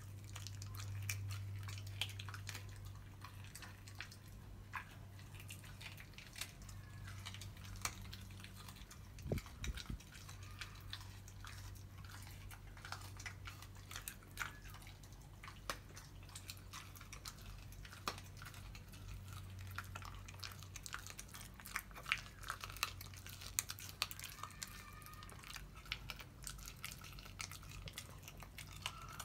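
A Rottweiler-cross puppy chewing frozen raw chicken bones: irregular sharp clicks and crunches of teeth on bone, with one louder knock about a third of the way in.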